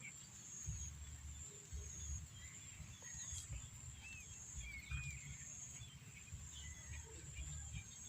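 Rural garden ambience: insects keeping up a steady high buzz, with scattered short bird chirps and a few curving whistled notes over it.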